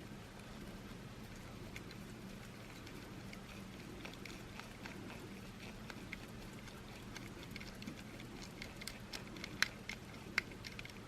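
Faint, scattered clicks and ticks of a small screw being unscrewed from a remote car key's plastic case, with a few sharper ticks near the end.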